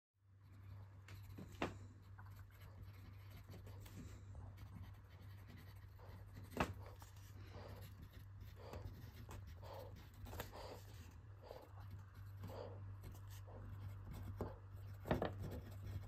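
Pencil lead scratching on paper in short strokes as a sketch is drawn, with occasional light taps, over a steady low hum.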